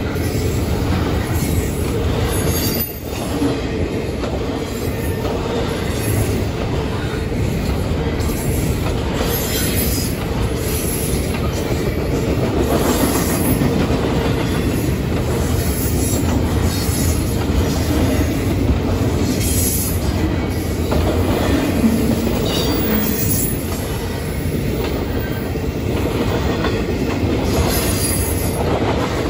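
Double-stack intermodal freight cars rolling past: a steady rumble and clatter of steel wheels on the rails.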